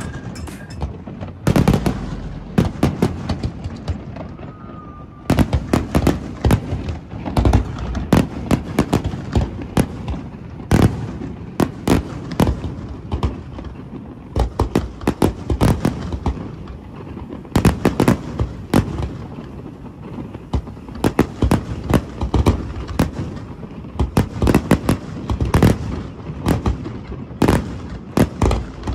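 A rapid, irregular series of sharp bangs and crackles coming in dense clusters, with a quieter stretch a few seconds in and another past the middle.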